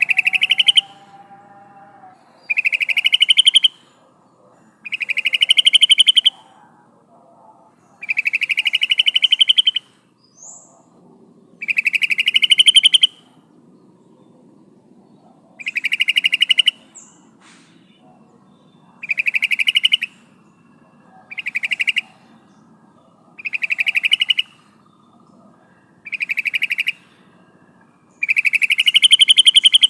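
Yellow-vented bulbul (trucukan) giving a series of loud, rapid chattering call phrases, each one to two seconds long, repeated about every two to three seconds. The uploader presents these as a female calling a male.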